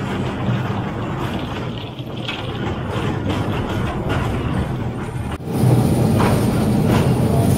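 A 1948 electric mine locomotive (a mine "mule") rolling along rails: a steady rumble of wheels and running gear on track. It steps suddenly louder about five seconds in.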